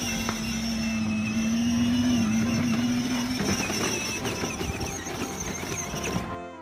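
Battery-powered ride-on toy car driving, its electric motors giving a steady hum and a high whine as its plastic wheels roll over concrete. The low hum stops about three and a half seconds in.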